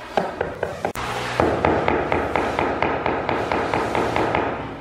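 Rapid tapping on a large polished porcelain floor tile to bed it into the mortar: a few separate taps, then after a brief break a fast, even run of about six taps a second.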